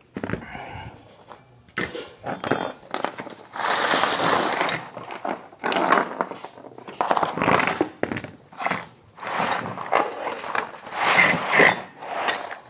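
Irregular clinks, rattles and rustling as small metal parts and packaging are handled and rummaged through, with a couple of short metallic rings.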